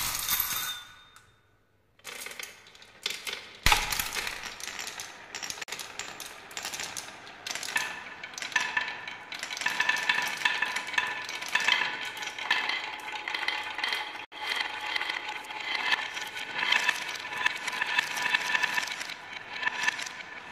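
Many glass marbles rolling down a wooden marble run and around a plywood spiral, a continuous clatter of clicks and clinks as they knock against the wood and each other. It starts about two seconds in, with a sharp knock a couple of seconds later, and grows busier as more marbles pour onto the spiral.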